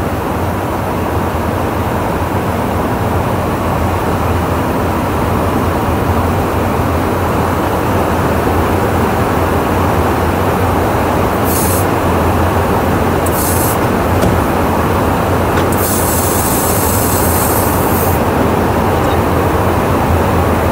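Steady in-flight cabin noise inside a KC-135 tanker's boom operator pod: a loud, even drone of engines and rushing air with a deep hum underneath. Three short high hisses cut in partway through, the last lasting about two seconds.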